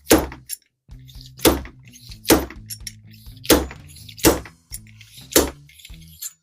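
A fork seal driver knocked down again and again onto a new fork oil seal, seating it in the motorcycle's fork slider: six sharp knocks about a second apart.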